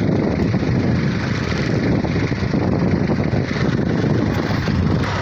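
A fishing boat's engine running steadily, with wind buffeting the microphone.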